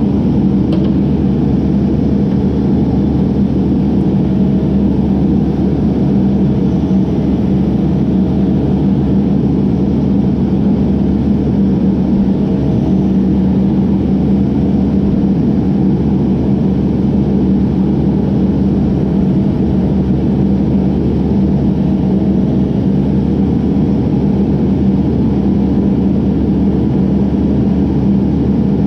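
Mini excavator's diesel engine running steadily as the arm digs, a constant drone with no pauses, heard from the operator's seat.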